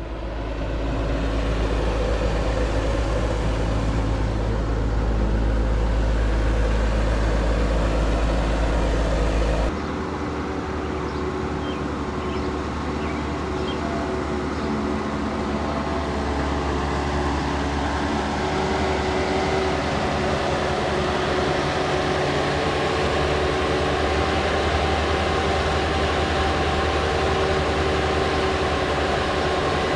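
Bobcat 773 skid steer's diesel engine running steadily under work, with an abrupt change to a different steady engine tone about ten seconds in.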